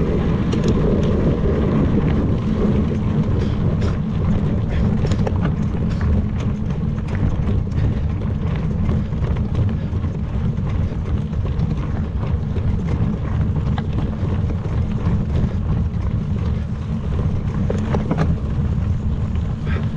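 Wind buffeting the microphone of a mountain bike's action camera while riding over a dirt track, a steady low rumble with scattered clicks and rattles from the bike on the rough ground.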